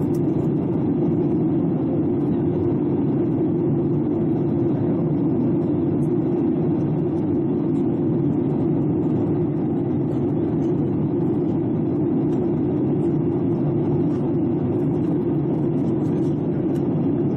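Steady in-cabin noise of a Boeing 737-800 in descent: its CFM56-7B turbofan engine and the rush of air past the fuselage, heard from a window seat beside the wing. An even, low rush with no change in level.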